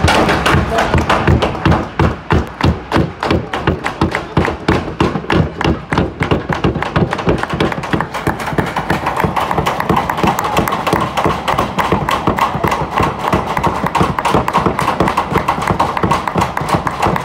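Ice rink crowd clapping in unison, about two claps a second, which after several seconds turns into continuous dense applause with crowd voices mixed in.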